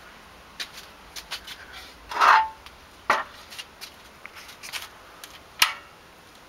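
Scattered sharp clicks and knocks of hands handling a small engine and its controls, with one short hissing burst about two seconds in and a sharp click near the end. The engine is not running.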